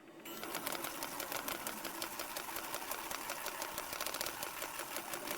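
Pen plotter's stepper motors running as it draws with a fineliner: a steady mechanical whir dense with rapid fine ticking, fading in at the very start.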